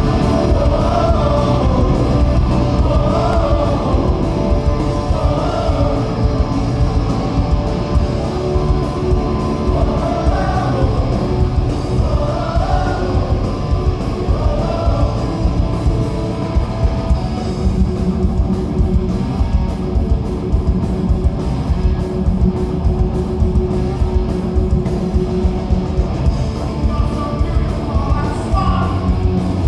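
Live punk rock band playing a song: distorted electric guitars, bass and drums with a male singer, loud and continuous.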